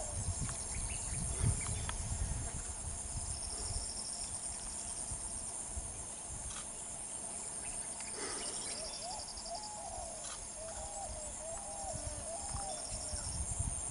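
Outdoor scrub-jungle ambience: insects drone steadily at a high pitch over a pulsing insect chirp. A bird calls a run of short rising-and-falling notes from about eight seconds in until near the end.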